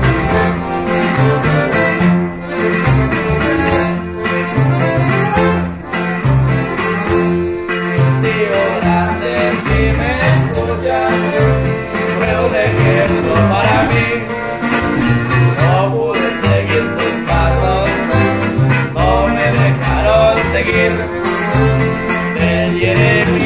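Instrumental passage of a norteño corrido: a button accordion plays the melody over strummed guitar and a plucked tololoche (upright bass) line.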